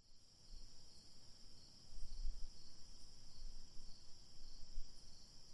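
Faint, steady chirring of insects, like a cricket chorus, over a low rumble that swells briefly about two seconds in and again near the end.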